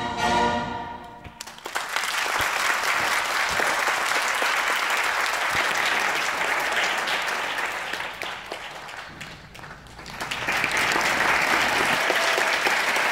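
Classical string music ends about a second in, and an audience applauds. The clapping dies down around eight seconds in and swells again about ten seconds in.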